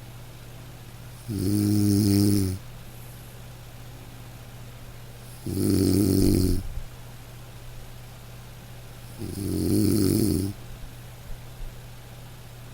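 Nasal snoring: three snores about four seconds apart, each lasting a little over a second, pitched with a hissy edge.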